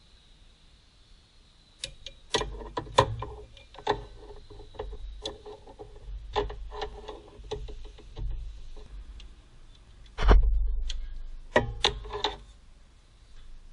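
Irregular clicks and light knocks, several with a brief ringing tone. A heavier thud about ten seconds in is the loudest sound, followed by a few more clicks.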